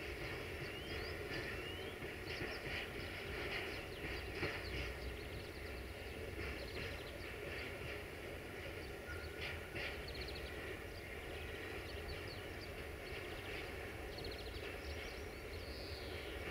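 Freight train rolling slowly away over station tracks, a steady low rumble of wagons and distant diesel locomotive. Small birds chirp and trill now and then throughout.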